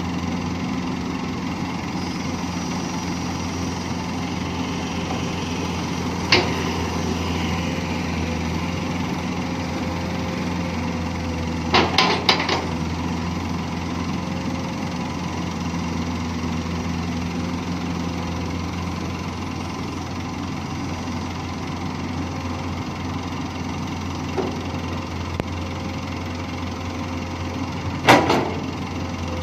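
Komatsu PC200 long-reach excavator's diesel engine running steadily as the machine digs and loads. Sharp clanks come about six seconds in, several close together about twelve seconds in, and the loudest near the end, when the bucket is over the dump truck's bed.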